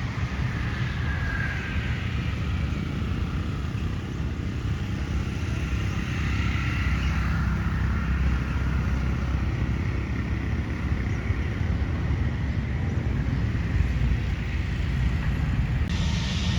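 Road vehicle engine running with a steady low rumble, amid outdoor traffic noise.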